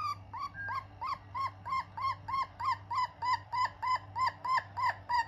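Silkie hen giving a steady run of short clucks, each rising and falling in pitch, about four a second.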